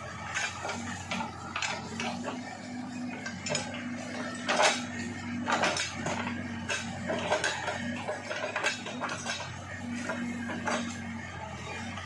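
Case 580 Super K backhoe loader's diesel engine running steadily while the backhoe digs, with repeated sharp metallic clanks and knocks from the arm and bucket working the ground, the loudest about four and a half seconds in.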